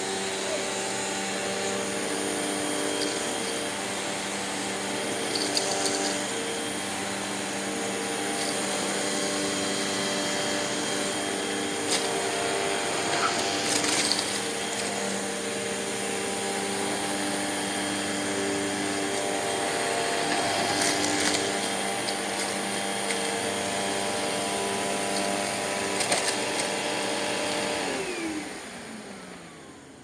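Hoover Elite Rewind Plus upright vacuum cleaner running steadily on a hard floor, with a few sharp clicks and rattles as it sucks up pieces of cereal. About two seconds before the end it is switched off and its motor whine falls away as it winds down.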